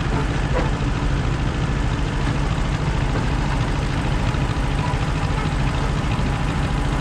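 A vehicle engine running steadily, a low even rumble.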